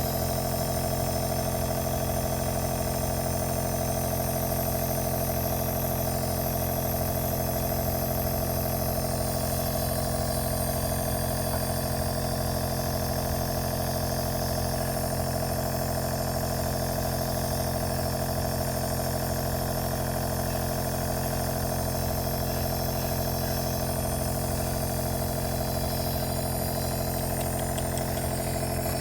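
Compressor nebulizer running with a steady, even-pitched mechanical hum that holds unchanged throughout.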